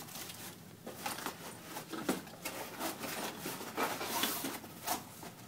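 Handling noises from a zippered laptop accessory case being opened and gone through: scattered clicks and rustles, with a longer rustle about four seconds in.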